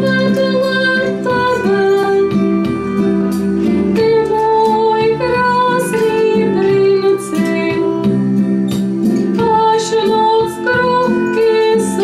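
A song: a woman singing a melody over plucked acoustic guitar accompaniment, without pause.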